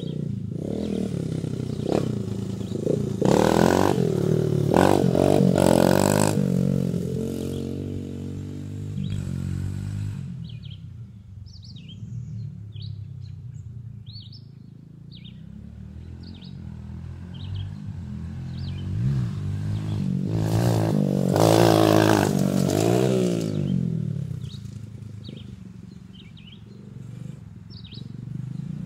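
Dirt bike engine revving up and down as the bike rides past twice, loudest a few seconds in and again about two-thirds of the way through, fading away between the passes. Birds chirp in the quieter stretches.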